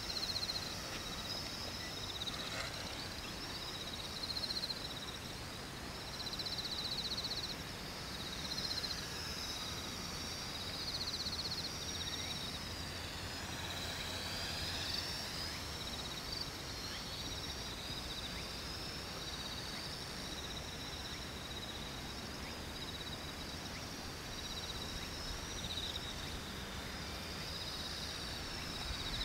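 X400 quadcopter's rotors whining high and thin, the pitch wavering and dipping and rising again as it manoeuvres in flight.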